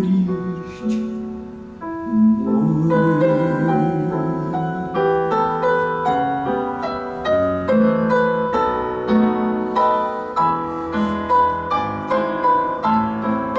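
Piano playing a slow instrumental passage, single notes over chords, with evenly spaced struck notes toward the end.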